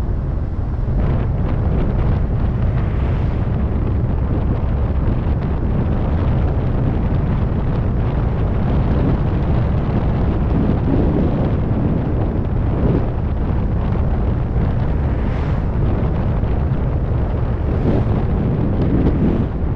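2004 Ford Focus under way: a steady low rumble of engine and road noise with wind buffeting the microphone.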